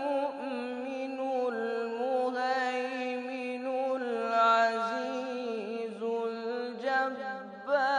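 A teenage boy's voice chanting Quran recitation (tilawa) in melodic style, drawing out long held notes with ornamented turns, with a short breath pause near the end.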